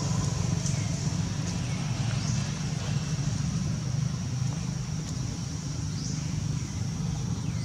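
Steady outdoor background rumble with a thin, steady high-pitched hiss above it and a few faint short chirps.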